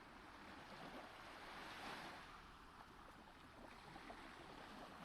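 Faint sea waves washing, swelling slightly about two seconds in and then easing off.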